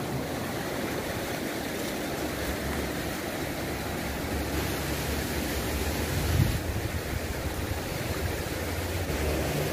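Steady rush of shallow river water flowing over a concrete slab, with some wind on the microphone. A brief low bump about six and a half seconds in.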